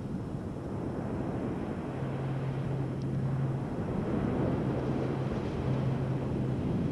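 Rushing surf and wind noise on the open beach, with a low steady drone that fades in and out.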